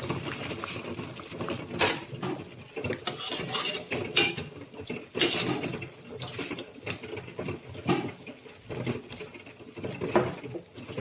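Rice being rinsed by hand in a pot: a busy swishing and rubbing of grains and water, with sharp clinks of the pot several times.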